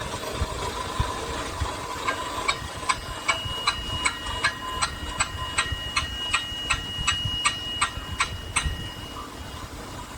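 Steady workshop machine hum with a run of evenly spaced metallic clicks, about three a second, and a ringing tone; the clicks stop near the end.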